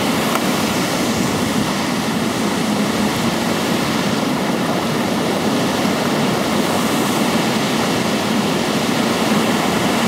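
Steady rushing of a waterfall and the creek flowing below it, an even roar of water with no breaks.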